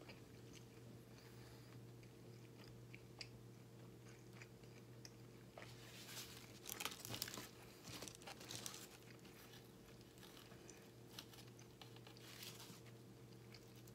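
A bagel sandwich handled on its foil wrapper close to the microphone: scattered soft clicks, with louder crackly bursts about six to nine seconds in and again near the end as a half is lifted off the foil. A steady low hum runs underneath.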